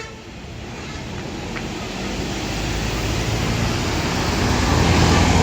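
A tour bus approaching on the road, its engine rumble and road noise growing steadily louder.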